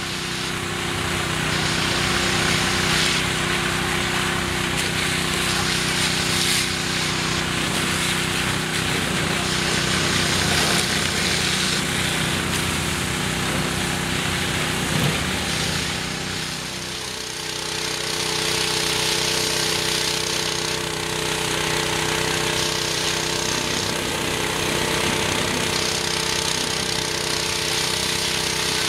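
Engine-driven pressure washer running steadily, its water jet hissing as it blasts mud off a mud truck's frame and tires.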